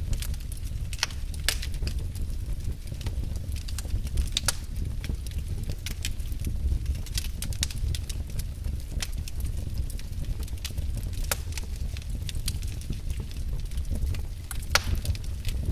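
Fireplace fire burning and crackling: irregular sharp pops and snaps, several a second and a few louder ones, over a steady low rumble of the flames.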